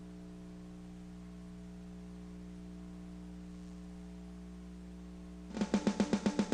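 Steady electrical hum, like mains hum in a broadcast recording, in a gap between background music tracks. About five and a half seconds in, music starts with a fast, evenly pulsing beat.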